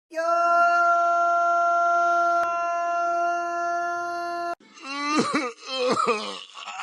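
Cartoon character crying sound effect: a long, dead-steady held wail for about four and a half seconds, then wavering sobs with the pitch sliding up and down.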